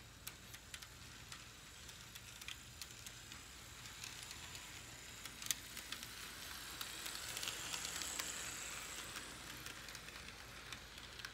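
HO-scale model train rolling along its track: a soft hiss of small wheels on rail with irregular sharp clicks over the track joints. It grows louder as the locomotive and flatcars pass close, peaking about seven to nine seconds in, then eases.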